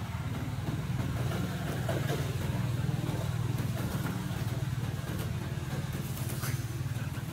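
Steady low hum of a running engine, holding at an even level.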